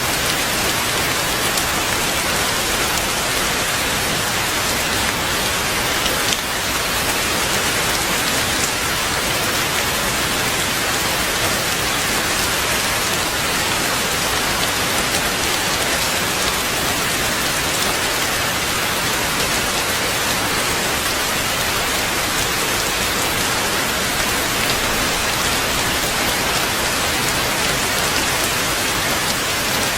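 Heavy rain falling steadily: a dense, even hiss of countless drops with no let-up.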